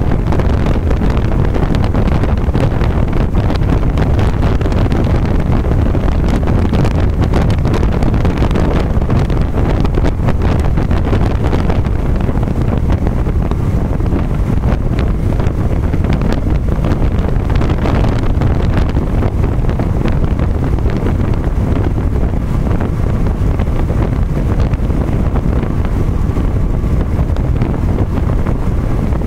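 Steady wind and road noise of a car driving at highway speed, with wind buffeting the microphone.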